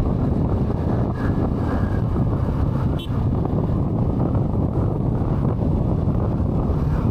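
Steady wind rush buffeting the microphone of a motorcycle rider at speed.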